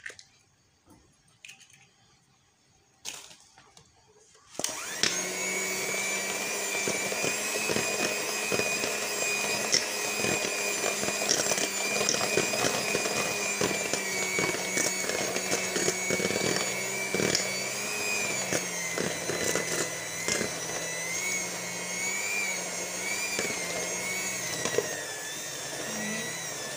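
A few small knocks as an egg is cracked over a stainless steel bowl, then about five seconds in an electric hand mixer starts and runs steadily, its motor whining with a slightly wavering pitch while the beaters clatter against the bowl, beating the egg into choux pastry dough.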